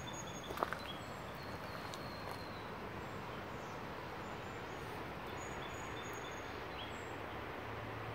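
Outdoor ambience by a flooded river: a steady rushing noise with a few faint, high, short bird calls and a couple of light clicks. A low steady hum comes in near the end.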